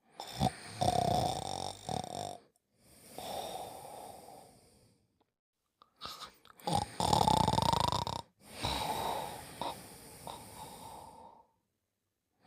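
Cartoon character snoring in his sleep: two slow snore cycles, each a loud snore on the in-breath with a whistling tone in it, followed by a softer, breathy out-breath, with short silent pauses between.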